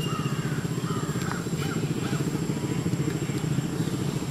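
A steady low rumble of an engine running, with faint short chirping calls over it.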